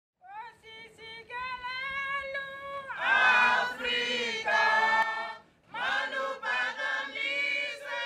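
A group of women singing together in harmony. A single voice leads at first, the full group joins about three seconds in, and they pause briefly before singing on.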